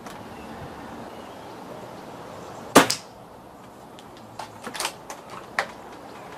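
A single shot from a .177 Reximex Regime PCP air rifle fitted with a Robert Lane regulator: one sharp crack a little under three seconds in. A few lighter clicks follow about two seconds later.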